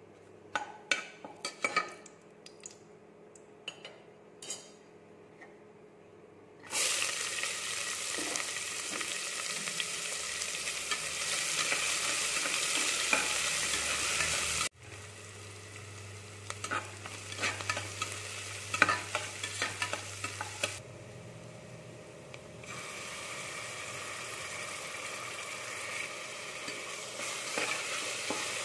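Slotted metal spatula tapping in a pressure cooker of hot oil and whole spices, then about seven seconds in a loud sizzle starts suddenly as sliced onions fry in the oil. About halfway the sizzle drops suddenly to a quieter level, with the spatula scraping and clicking against the pot as the onions are stirred.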